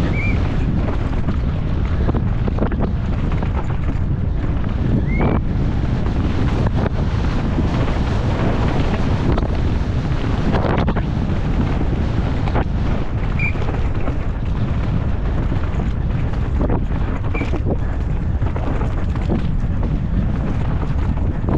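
Wind rushing over the microphone of a downhill mountain bike at speed, with the tyres rolling over dry dirt and loose rocks and the bike rattling and knocking over bumps.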